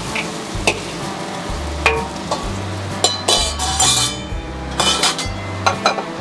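Metal wok ladle scraping and clinking against a wok as spare ribs are stirred in a bubbling, reducing braising sauce, with a sizzle underneath. A run of sharp clinks comes near the end.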